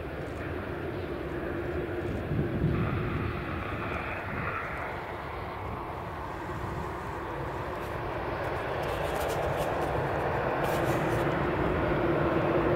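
Airbus A380-861's four Engine Alliance GP7200 turbofans running as the airliner turns onto the runway and rolls, a steady distant jet rumble with a held hum. It grows louder over the last few seconds.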